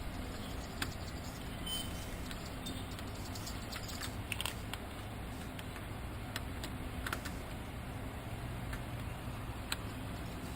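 Scattered small clicks and scrapes of lock-picking tools being worked inside a lock, over a steady low background rumble.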